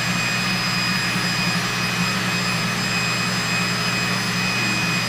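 Ritmo RAM28 hydraulic butt fusion machine running steadily while its facer spins, planing the ends of 4-inch HDPE pipe held under about 168 PSI facing pressure: a steady hum with a thin high whine over it.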